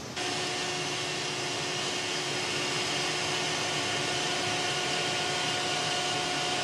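Steady machine noise in a workshop: an even hiss with a held whine, starting abruptly just after the start and running at a constant level.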